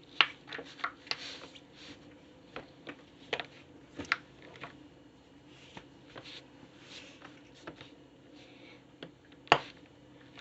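Irregular sharp clicks and short crinkles of plastic fidget toys being handled and pressed, with one loud snap near the start and another near the end.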